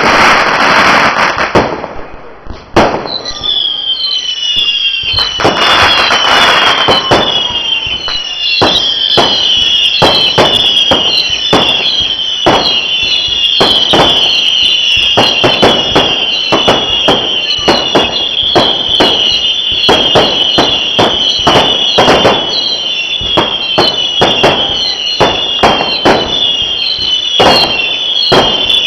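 Fireworks going off in quick succession: loud bangs and rapid crackling. From about three seconds in, many overlapping shrill whistles join in, each sliding slightly down in pitch.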